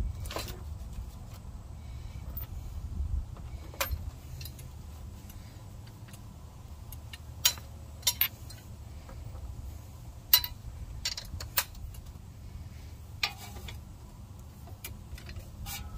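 Metal sockets and hand tools clinking as a hand rummages through a socket-set tray: about a dozen separate sharp clinks at irregular intervals, over a low steady background rumble.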